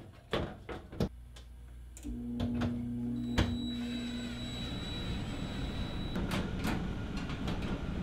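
A few handling clicks, then about two seconds in the air handler's newly replaced blower motor starts: a steady electrical hum with a broad rush of air that keeps running.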